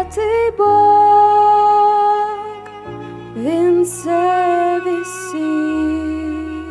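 Slow, tender Christian song: sung held notes that slide up into each word, over a steady low accompaniment.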